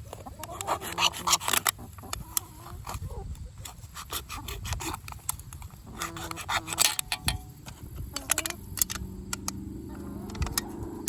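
Knife cutting through a thin aluminium pop can: irregular crinkling, scraping and sharp crackling clicks as the blade saws around the can.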